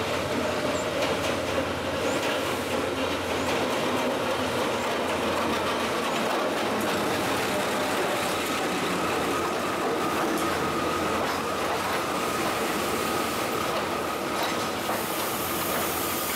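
Diesel locomotive running as it passes close by, followed by its passenger carriages rolling past on the rails. A thin, steady high squeal starts about halfway through.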